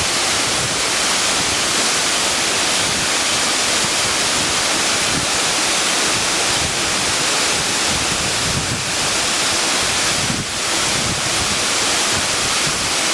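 A 95-foot waterfall pouring steadily: a constant loud rushing hiss of falling water.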